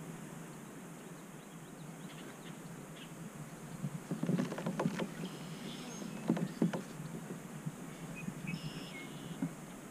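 Small clicks and knocks from a spinning rod and reel being worked from a fishing kayak on calm water, in two short bunches about four and six seconds in, over a steady low hum.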